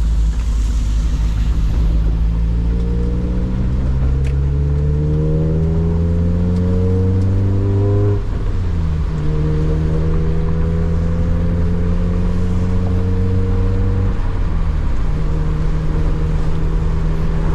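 Car engine of a manual-gearbox car, heard from inside the cabin, rising in pitch as it pulls through the revs in gear, then dropping suddenly at a gear change about eight seconds in. It holds a steady pitch at cruise, with another brief dip near the end.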